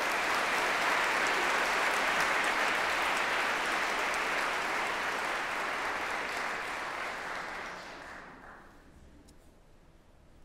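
Audience applauding, steady for about seven seconds, then dying away about eight seconds in.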